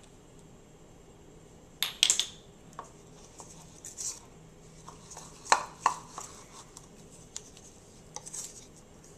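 Wire whisk clinking and scraping against a ceramic mixing bowl as a thick powdered-sugar glaze is whisked. The clinks come in irregular bursts starting about two seconds in, the sharpest around two and five and a half seconds.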